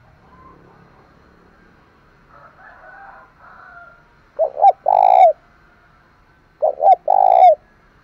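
A caged spotted dove cooing twice, about two seconds apart. Each phrase is two short coos followed by a longer, held coo.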